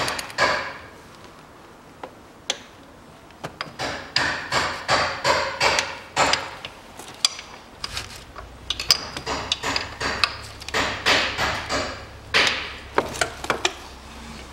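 Metal clicks and knocks of a wrench working on the camshaft pulley bolts of a timing belt drive, in quick irregular runs with a short pause near the start.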